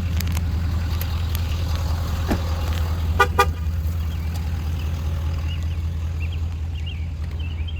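Steady low hum of a running vehicle engine, with a brief double beep about three seconds in.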